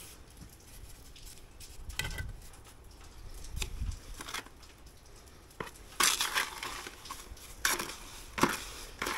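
Steel pointing trowel scraping and clinking against brick and wet mortar in scattered strokes, with a longer stretch of scraping about six seconds in.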